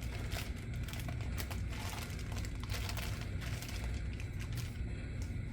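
Packaging crinkling and crackling in irregular bursts as a model steam locomotive is pulled out of its box and foam packing, over a steady low hum.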